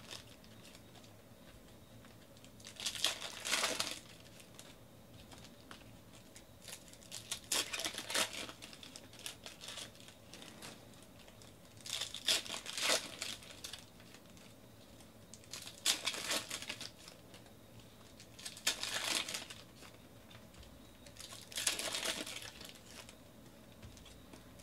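Foil trading-card pack wrappers crinkling and tearing as packs are opened by hand, in short bursts every three to four seconds.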